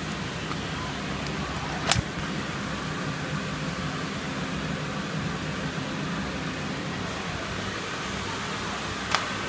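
High-frequency tarpaulin welding machine running with a steady hum, with two sharp clicks, one about two seconds in and one near the end.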